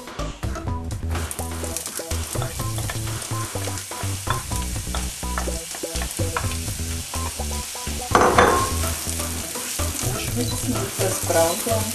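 Diced onion and garlic sizzling in hot olive oil in a frying pan while being stirred, with a louder burst of sizzle about eight seconds in.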